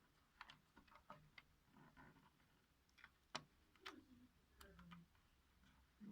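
Faint, irregular clicks and light taps of small plastic parts and tools being handled during connector work on a circuit board, the sharpest click about three and a half seconds in.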